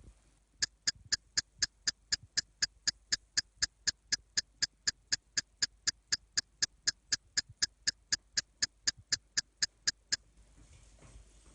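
Sharp, evenly spaced ticking, about four ticks a second, keeping a machine-steady beat for roughly nine and a half seconds before it stops.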